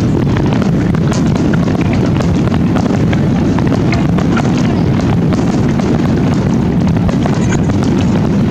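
Fireworks finale: many aerial shells bursting in quick succession, their booms merging into a continuous rumble with many sharp cracks over it.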